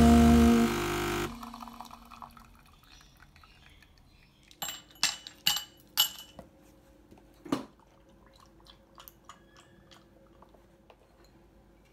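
Jazz music with saxophone cuts off about a second in. Then ice cubes clink into a tall drinking glass, about five sharp clinks, followed by milk poured faintly over the ice.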